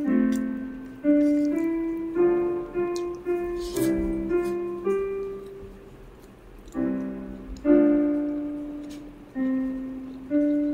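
Background music: a slow piano melody played one note at a time, each note struck and left to ring and fade. A brief noisy click sounds about four seconds in.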